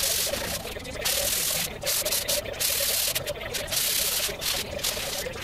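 Sandpaper rubbed by hand over a black-painted barbecue grill panel in repeated back-and-forth strokes with short pauses between them, scuffing the old finish so new paint will stick.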